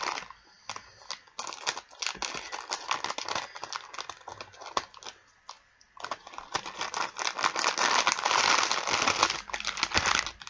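Plastic snack wrapper crinkling and crackling as it is handled, growing louder and denser over the last few seconds.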